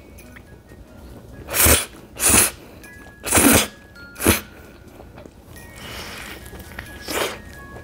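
Close-miked eating sounds: five short, loud, noisy mouth sounds as spicy noodles and sauced fried chicken are slurped and bitten, with faint background music underneath.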